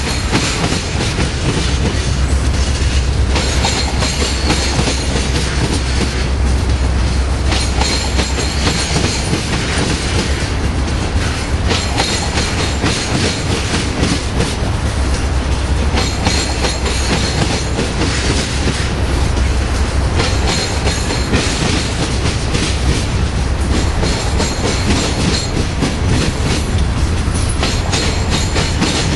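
Freight train's tank cars and covered hoppers rolling past, steel wheels clattering over the track with a brighter burst of clatter about every two seconds, over a steady low rumble.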